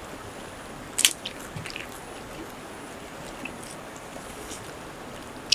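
Two people eating with their fingers off a banana leaf: chewing, with a few sharp clicks or crunches, the loudest about a second in, a small cluster just after it and another near the end, over a steady low hiss.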